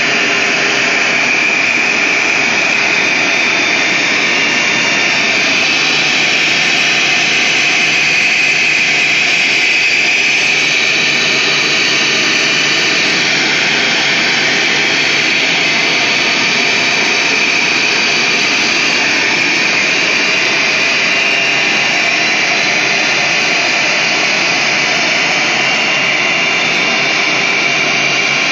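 Wood CNC router's spindle running at speed and cutting, a steady high-pitched whine over an even noise that holds unchanged throughout.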